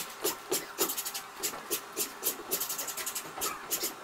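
Bare feet of several dancers slapping, thudding and scuffing on a stage floor, in quick irregular steps, over a faint steady hum.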